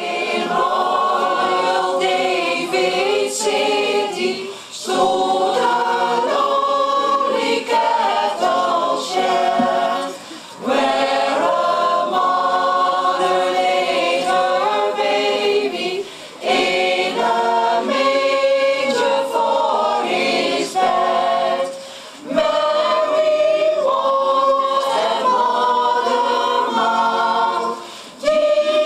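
Mixed choir of women's and men's voices singing a Christmas carol a cappella, in phrases of about six seconds with a brief break for breath between them.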